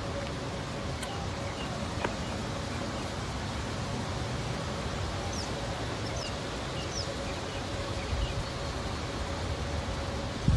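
Outdoor ambience beside a fishing pond: a steady hiss with a faint steady hum, and a few faint short high chirps around the middle.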